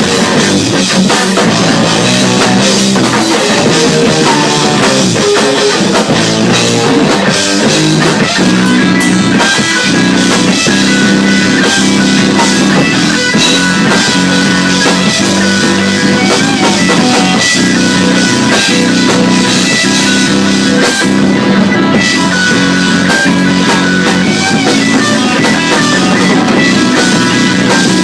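Loud rock music with guitar and drum kit playing steadily.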